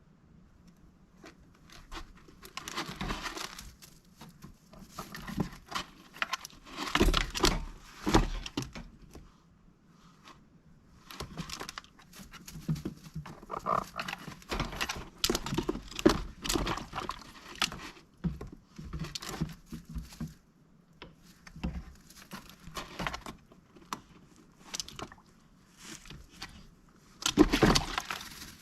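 A mallard duck moving about, making irregular bursts of rustling, pattering and sharp knocks, loudest about a quarter of the way in and again near the end.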